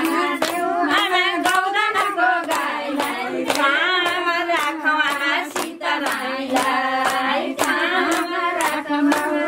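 Voices singing a song together, accompanied by steady rhythmic hand clapping at roughly three claps a second.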